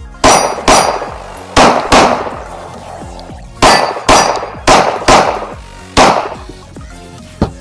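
Springfield Echelon pistol with a Patriot CNC compensator firing nine loud shots, mostly in quick pairs, each with a short metallic ring, followed by a fainter report near the end.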